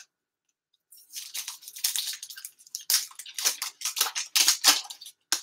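Foil wrapper of a hockey card pack being torn open and crinkled by hand: an irregular run of dry crackling rustles that starts about a second in.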